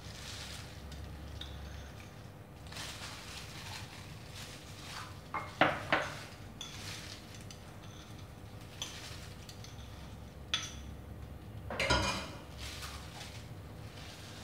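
A knife scraping and tapping around the inside of ceramic bowls to loosen set milk gelatin, with the bowls clinking. Two louder ringing clinks come about six seconds in and again about twelve seconds in.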